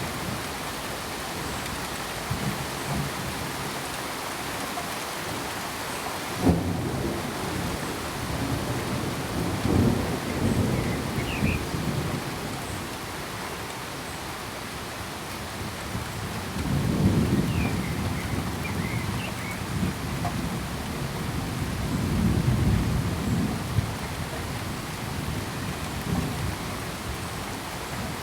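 Steady rain with rumbles of thunder: a sudden one about six seconds in, then longer rolling rumbles further on.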